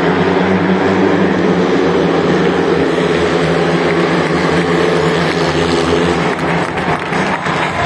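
Speedway bikes' 500 cc single-cylinder methanol engines racing at full throttle around the track. The engine note weakens a little near the end as the heat reaches the chequered flag.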